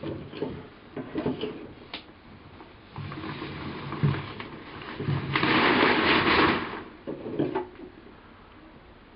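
Handling of a plastic container stuffed with crumpled paper packing: scattered clicks and knocks, then rustling, with one loud rustle lasting about a second and a half just past the middle.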